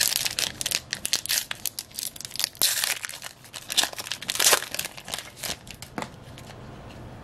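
Foil wrapper of a Panini Prizm Racing trading-card pack being torn open and peeled apart: a quick run of sharp crinkles and rips, dying down near the end as the stack of cards comes out.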